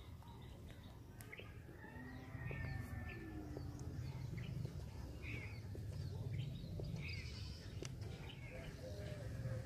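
Birds chirping, short calls about once a second, over a steady low rumble.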